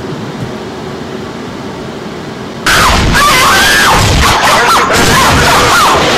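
A steady noisy hum, then about two and a half seconds in a loud music track cuts in abruptly, with a high voice sliding up and down in pitch over it.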